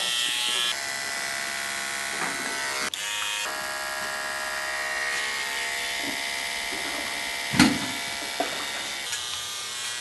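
Electric hair clippers running with a steady buzz while cutting hair short at the nape over a comb, the tone shifting a little as they move through the hair. A brief louder knock about three quarters of the way through.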